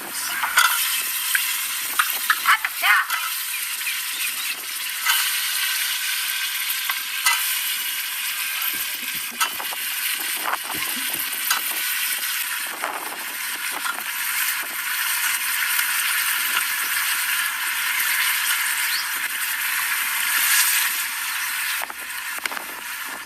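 Food sizzling as it fries in a pan, with scattered clicks and scrapes of a utensil stirring it.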